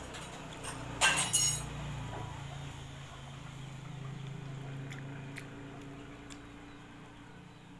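Eating noises at a meal of fried chicken and rice: a quick cluster of sharp clicks about a second in, then a low steady hum that fades out after a few seconds.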